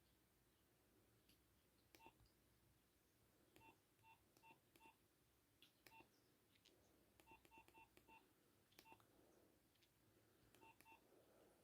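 Nokia 6101 flip phone key tones: faint short beeps with button clicks as keys are pressed, some single and some in quick runs of two to four about a third of a second apart.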